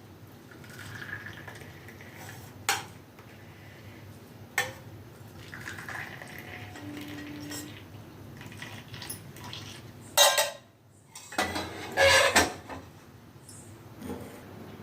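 Cups and kitchen utensils clinking and knocking as tea is served, with single clicks a few seconds in and louder clattering around ten and twelve seconds in.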